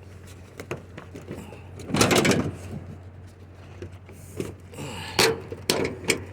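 Scrap items being shifted around to make room in a load: a scrape or drag about two seconds in and several sharp knocks and clatters near the end.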